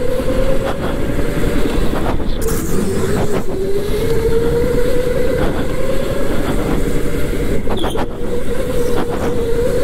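Electric go-kart's motor whining under way, its pitch dropping about three seconds in and climbing back as the kart slows for a corner and accelerates out, over a steady rushing noise.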